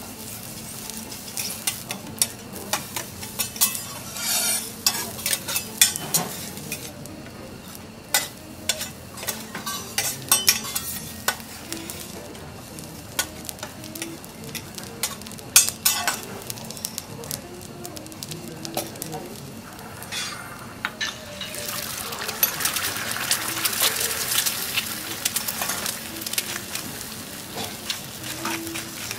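Steel spatula and fork clacking and scraping on a hot teppanyaki griddle as garlic rice is gathered into a mound, over a steady sizzle. About two-thirds of the way through the sizzle grows louder and steadier as an egg fries on the plate.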